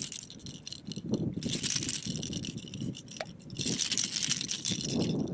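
A topwater fishing lure and its hooks rattling as a small hooked fish shakes on the line, in two bursts, about a second and a half in and again around four seconds.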